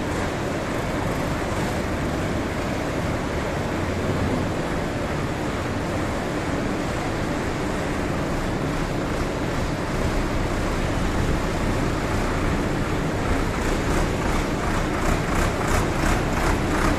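Solis 6024 tractor's diesel engine running steadily, with a loader at work. A pulsing beat of about three a second grows louder near the end.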